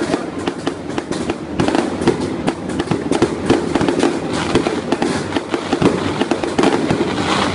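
Fireworks display going off in quick succession: a dense run of sharp bangs and crackles, several a second, with no let-up.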